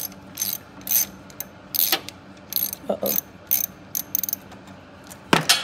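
Hand socket ratchet clicking in repeated short back-strokes, about two a second, as a bracket bolt is undone with a 5/16 socket. A louder quick run of clicks comes near the end.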